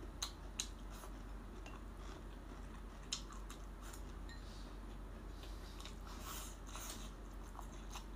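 A person chewing a mouthful of stir-fried cauliflower close to the microphone, with a few sharp clicks in the first few seconds.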